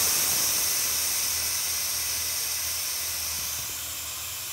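Compressed air hissing out of the pneumatic actuator of a Definox mixproof valve as it vents and the valve stem moves, a bright hiss that fades gradually.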